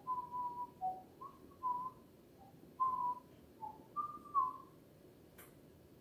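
A man whistling a short, idle tune of about ten brief notes, most near one pitch with a few dipping lower and the last ones higher. A single sharp click comes near the end.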